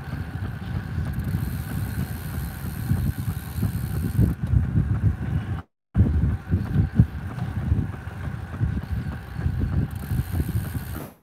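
Wind buffeting a phone microphone that is moving at speed, heard as a low, uneven rumble. About halfway through, the sound cuts out completely for a moment.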